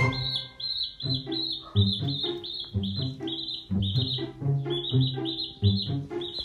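A baby chick peeping over and over, short high peeps about two to three a second, over background music.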